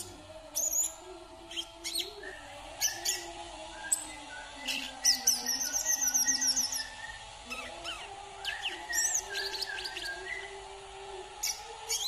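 A caged male sunbird singing: quick high chirps and short twitters. About five seconds in comes a fast run of rapid twittering notes, the loudest part, then scattered chirps.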